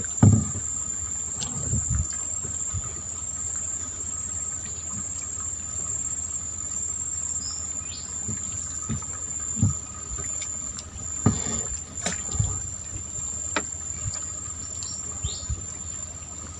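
Steady high-pitched insect drone, cricket-like, with a second lower steady tone, and scattered short knocks and thumps throughout.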